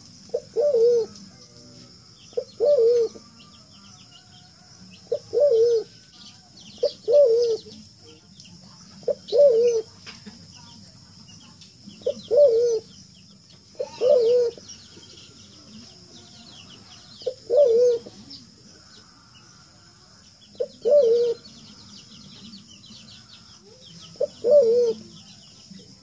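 Forest pigeon cooing: a low, wavering coo, often led by a short note, repeated about ten times at intervals of two to four seconds. A steady high insect hum and small-bird chirps run underneath.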